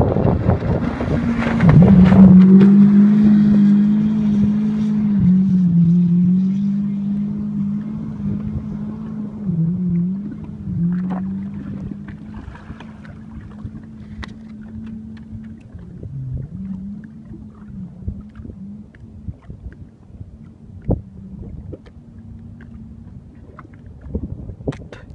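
Watercraft engine running at a steady pitch with a few brief dips, loud at first and fading gradually away. The first couple of seconds carry rushing wind and water noise.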